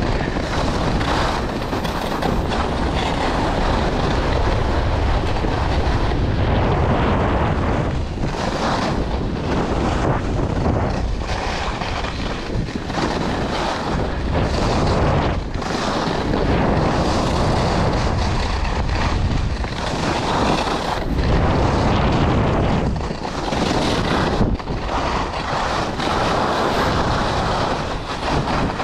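Wind buffeting the microphone during a fast ski descent, mixed with the hiss and scrape of skis on packed snow, rising and dipping every few seconds.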